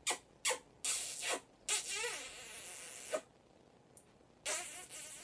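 Wet kissing smacks and long hissing, sucking sounds as a woman and an African grey parrot kiss beak to lips, with a faint wavering warble in the hiss. A few sharp smacks come first, then hiss for about two seconds, another smack about three seconds in, a short quiet gap, and the hiss starts again near the end.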